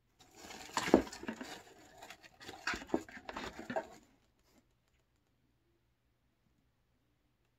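Rustling and crinkling of honeycomb kraft paper packing in a cardboard box as a hand rummages through it and pulls out a small plastic tube, with a few sharp knocks, the loudest about a second in. The handling stops about four seconds in.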